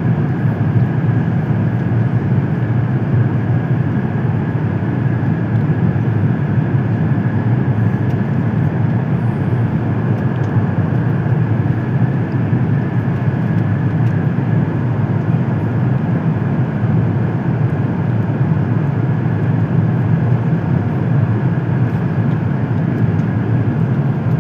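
Steady cabin noise of an Airbus A380 on final approach: a constant low rumble of engines and airflow, with a faint high whine running through it.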